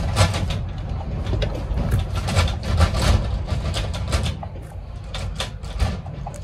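Wind buffeting the phone's microphone: a gusty low rumble with irregular crackles throughout.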